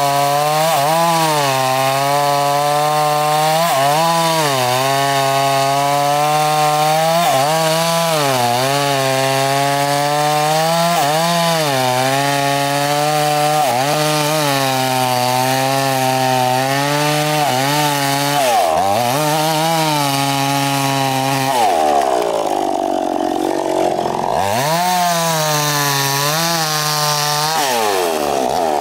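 Gasoline chainsaw cutting through a large albasia log: the engine runs at high revs, its pitch dipping again and again as the chain bogs down in the wood and recovering. About 22 seconds in the revs drop away for a couple of seconds, then the saw is throttled back up and cuts on.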